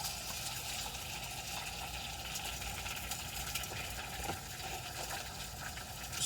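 Faint steady sizzle of food frying in a pan, with a few light clicks.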